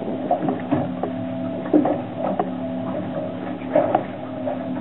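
Boat's outboard motor idling with a steady hum, with scattered clicks and knocks from the fishing reel and tackle as a hooked coral trout is wound in.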